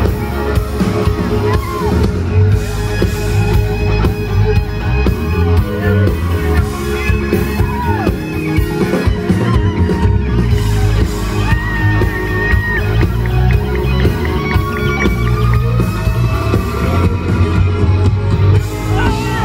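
Live country-rock band playing loudly with heavy bass, drums and guitars, picked up from within the audience, with crowd yells mixed in.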